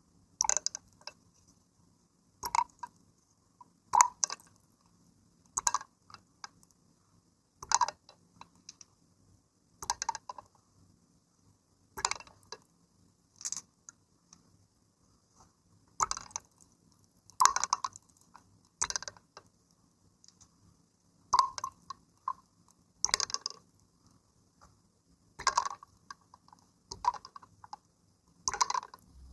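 Water splashing and sloshing in short separate bursts, about one every one and a half to two seconds, with quiet between them.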